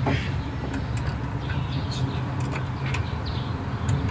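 The Rusi Caruza's engine idling steadily, with a few light clicks and taps over it.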